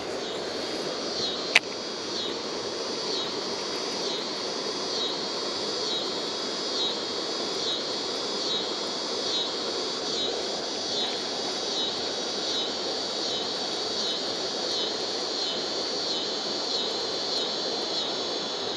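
Steady rush of river water, with a high-pitched insect chorus over it that pulses evenly just under twice a second. A single sharp click sounds about a second and a half in.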